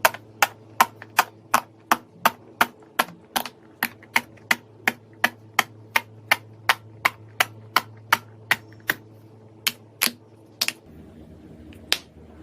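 Silicone push-pop bubble fidget toy being popped bubble after bubble in a steady run of sharp pops, about two or three a second. The pops stop about eleven seconds in, with one more near the end.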